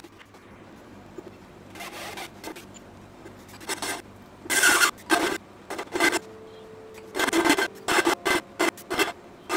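Hole saw cutting into a steel beam on a 13 mm benchtop drill press: irregular rasping, grinding bursts as the teeth bite, about ten of them, with a steady hum coming in about six seconds in. The drill press is short of power for a 65 mm cut in steel.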